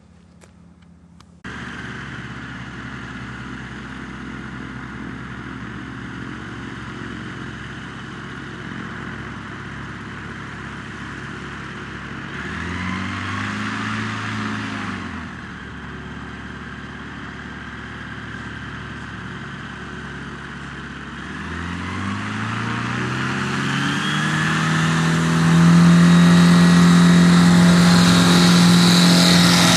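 Rotax 912 flat-four aircraft engine and propeller of a Kitfox 4 Speedster, starting about a second and a half in and running at low power. About halfway through it is briefly revved and eased back, then from about two-thirds through it is throttled up steadily to full power for the takeoff roll.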